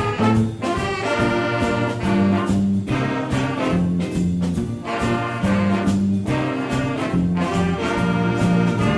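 Middle school jazz band playing live: trumpets and trombones play changing held chords, with regular drum-kit and cymbal strokes underneath.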